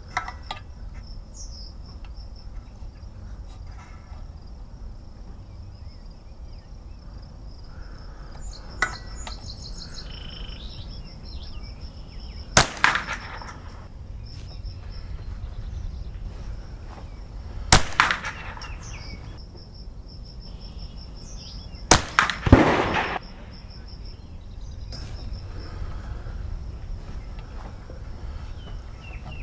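Marlin Model 60 semi-automatic .22 Long Rifle firing CCI Mini Mag rounds: four sharp shots spaced a few seconds apart, the last two about half a second apart. A steady pulsing insect chirr runs underneath.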